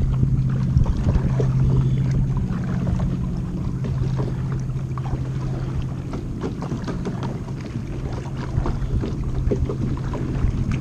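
Kayak being paddled, with irregular splashes and drips of water from the paddle over a steady low hum.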